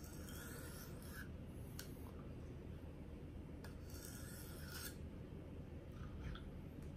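A 1500 grit stone on a KME guided knife sharpener drawn lightly along a paring knife's edge, a faint hissy scrape with a few strokes and a pause in the middle. These are light test passes with honing oil at a 20-degree setting, to see where the stone meets the Sharpie-marked bevel.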